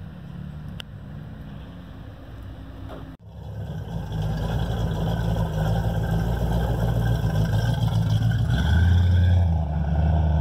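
Classic cars driving slowly past with their engines running loud and low: a hot rod, then an old Porsche 911. Before a cut about three seconds in there is only a quieter low engine hum.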